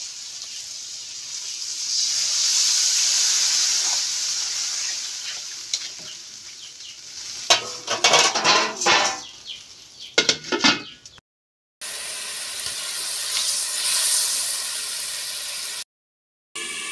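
A wok of potatoes, tomatoes and spice paste sizzling loudly as water goes into the hot pan, then a metal spatula scraping and clattering against the wok for a few seconds as the curry is stirred. After a short break the pan sizzles steadily again.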